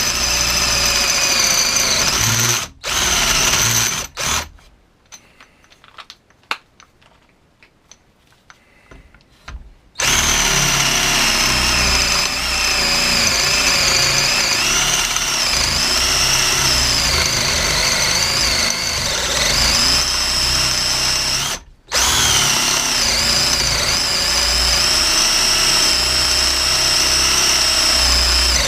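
Parkside PBSA 12 D4 12-volt cordless drill boring a 32 mm bit through 4x2 timber, its motor running hot with a high whine that dips in pitch now and then under load. It stops briefly a few seconds in, is almost silent apart from light clicks for several seconds, then runs long stretches with one short stop about two-thirds through.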